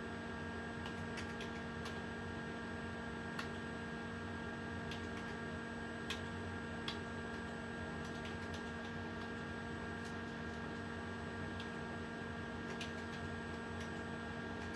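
Scattered, irregular clicks of a computer keyboard as values are typed in, over a steady electrical hum.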